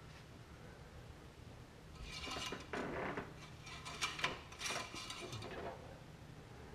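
Light metallic clinks and scrapes of parts being handled, in several short bouts through the middle, over a faint steady low hum.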